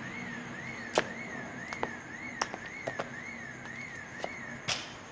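A siren-like electronic tone warbling up and down about twice a second, stopping near the end, with a few sharp clicks and ticks scattered through it.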